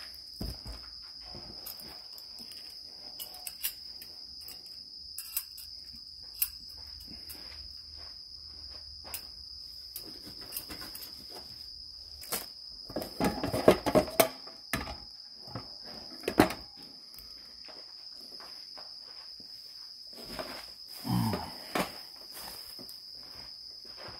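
A steady, high-pitched insect trill runs throughout. Over it come scattered clicks and rustles of plastic bags and food packages being handled, louder in clusters about halfway through and again near the end.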